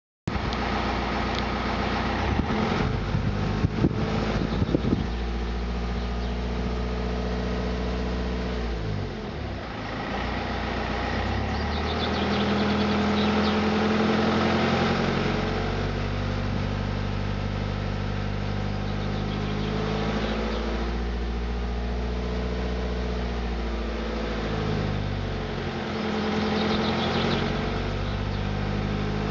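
BMW 118d's four-cylinder diesel engine running with a rubbing, grinding noise. Its speed dips and picks up again about a third of the way in and near the end, and there are a few sharp clicks in the first few seconds.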